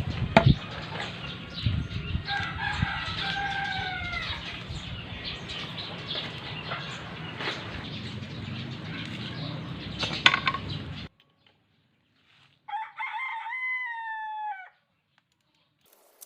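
A rooster crowing twice, once about two and a half seconds in and again near the end, each call a pitched crow that falls at its close. Under the first crow there are scattered clicks and knocks over a steady background noise, which cuts out suddenly about eleven seconds in.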